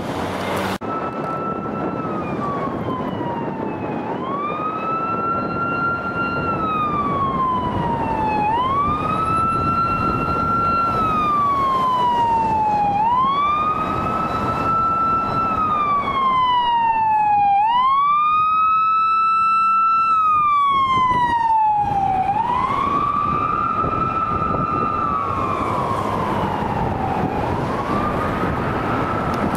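California Highway Patrol car's older-style siren on a slow wail. Each cycle rises quickly, holds high, then slides slowly down, repeating about every four and a half seconds over road traffic noise.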